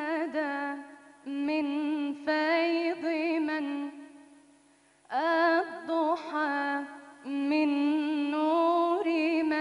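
A woman singing Islamic religious chant (inshad) solo, with no accompaniment, into a microphone. She sings several long phrases of wavering, ornamented melody, with short pauses for breath between them.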